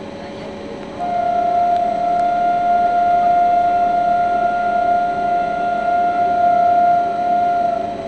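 WAP-7 electric locomotive's high-tone horn sounding one long steady blast, starting about a second in and holding for some seven seconds as the train approaches.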